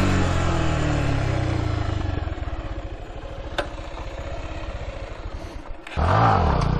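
Stunt motorcycle engine dropping off a rev and then running low and uneven, with one sharp click about three and a half seconds in. Near the end it is revved hard again, the pitch swinging up and down, as the rider tries to pop a wheelie on the wet road.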